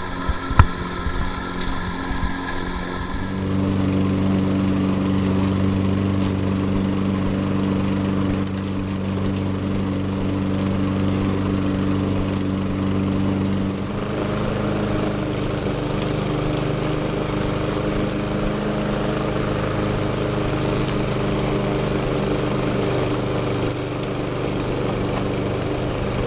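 Lawn mower engine running steadily. It starts abruptly about three seconds in, after a different, quieter sound with a few clicks, and its note shifts slightly about ten seconds later.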